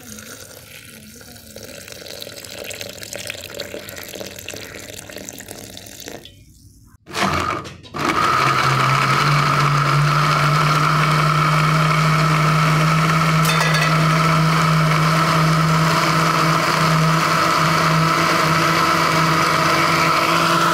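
An electric blender's motor grinding bitter gourd for juice: after several seconds of quieter, indistinct sound, it gives a short burst about seven seconds in, then starts up again about a second later and runs loud and steady.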